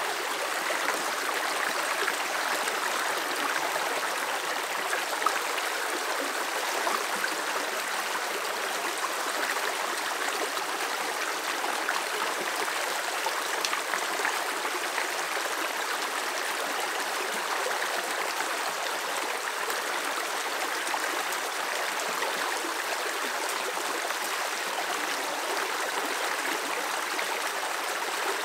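Shallow rocky stream running over stones and low ledges, a steady water noise that does not let up.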